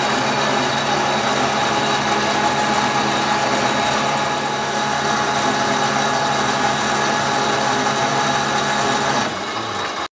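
Metal-cutting bandsaw running steadily as it cuts a steel bar: a continuous mechanical whir with a steady whine, dropping slightly in level near the end.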